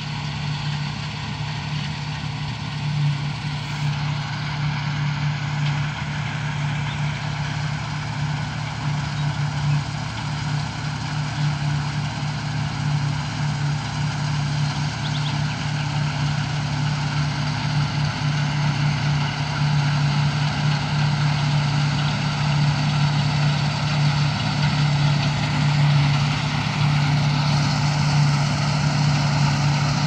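Combine harvester working in standing grain: a steady engine and machinery drone with a strong low hum, getting louder in the last third as the machine comes nearer.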